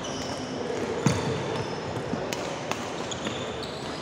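Badminton rackets hitting a shuttlecock during a doubles rally: several sharp hits, the loudest about a second in, with short squeaks of shoes on the court floor between them.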